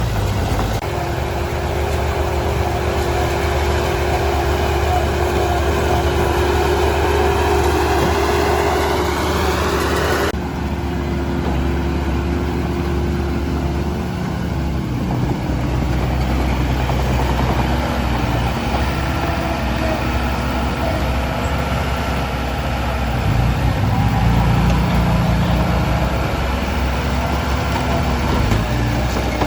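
Heavy diesel engine of construction machinery running steadily. Its pitch rises over the first ten seconds, and the sound changes abruptly about ten seconds in.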